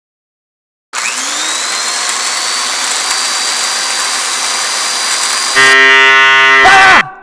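A loud hissing screech with a thin high whistle, then a louder, steady buzzing tone that drops sharply in pitch near the end and trails off in an echo.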